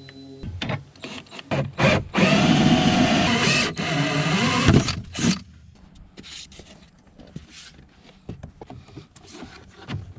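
A power saw cutting through half-inch PVC deck board for about three seconds, its pitch wavering under load. A few knocks come before it, and lighter tapping and handling of the board follow.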